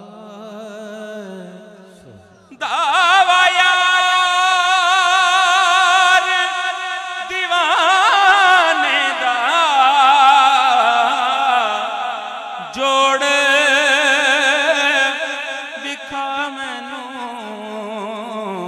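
A man singing a Punjabi naat into a microphone, holding a long wordless melismatic line with strong vibrato. The voice swells sharply a couple of seconds in and breaks off briefly about two-thirds through before carrying on.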